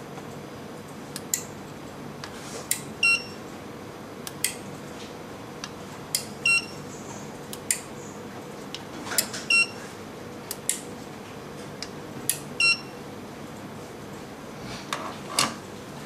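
Relay clicks from a 4-channel RF remote receiver board as each channel is switched on and off in turn, with four short electronic beeps, one per channel, from the two-way transmitter's feedback signal. Near the end come a couple of handling knocks as the transmitter is set down.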